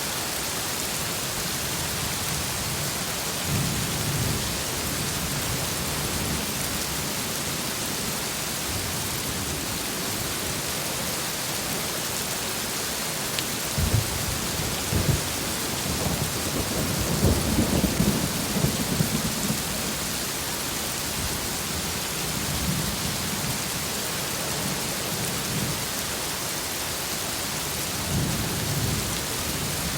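Heavy rain falling steadily as a dense hiss, with thunder rumbling low underneath several times; the loudest thunder comes about halfway through, starting with a couple of sharp cracks and rolling on for several seconds.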